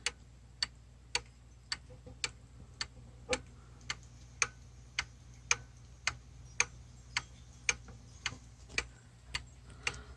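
Mechanical pendulum wall clock ticking steadily, a little under two ticks a second.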